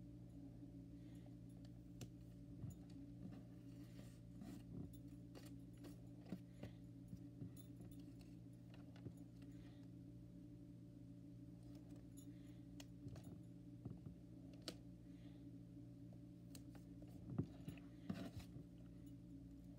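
Faint taps, clicks and rustles of paper heart cutouts being pressed onto a notebook cover and picked from a loose pile, louder for a moment near the end, over a steady low hum.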